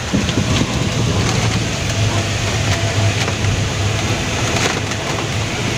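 Truck's diesel engine running with road noise, heard from inside the cab while driving: a steady low drone with a few short rattles.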